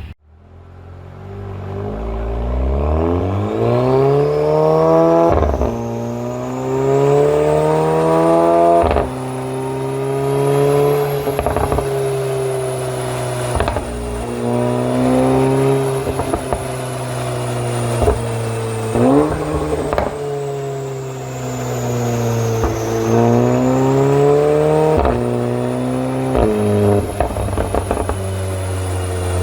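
Audi S3 8V's turbocharged 2.0 TFSI four-cylinder through a sports exhaust, accelerating hard through the gears: the note climbs, drops back at each shift and climbs again. Sharp pops and cracks sound at the shifts and when the throttle is lifted, from an engine map tuned for pops and bangs.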